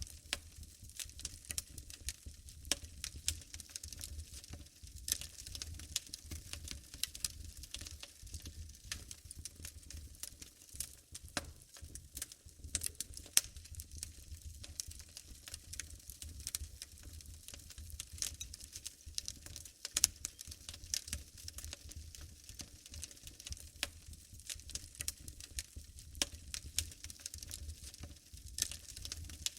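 Wood fire burning in a fireplace, crackling steadily with irregular small pops over a low rumble, and a few sharper snaps.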